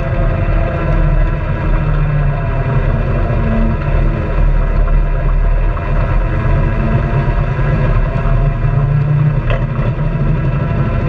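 Honda Pioneer 700-4 side-by-side's single-cylinder engine running steadily while driving along a gravel trail.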